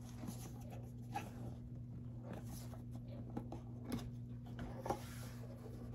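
Light handling noises from a cardboard box: scattered small clicks and soft rustles, with one sharper click near the end, over a steady low electrical hum.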